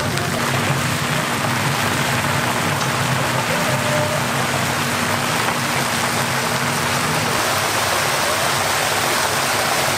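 Battered fritters deep-frying in a large wok of hot oil: a steady, dense sizzle of bubbling oil.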